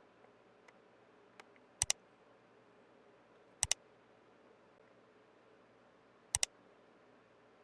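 Three sharp double clicks, the two clicks of each pair a split second apart and the pairs about two seconds apart, with a few faint ticks before the first pair, over a low steady hiss.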